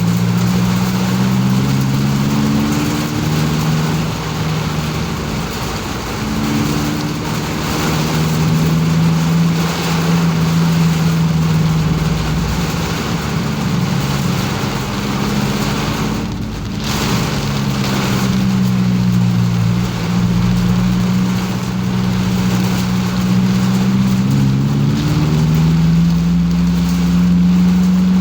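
Car engine heard inside the cabin, its pitch rising and dropping several times as the car accelerates and shifts. It runs over a steady hiss of rain and tyres on the wet road, which drops out briefly a little past halfway.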